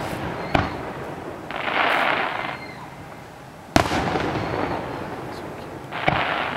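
Aerial firework shells bursting: sharp bangs about half a second in and again near four seconds, each fading slowly as it echoes. A hiss of about a second comes around two seconds in, and another burst near the end.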